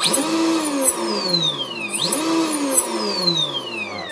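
Brushless motor of a Volantex Vector SR80 Pro RC speedboat run out of the water on a 3S battery: two throttle blips about two seconds apart. Each time the motor whines up sharply to a high pitch, then winds down in a long falling whine as it coasts.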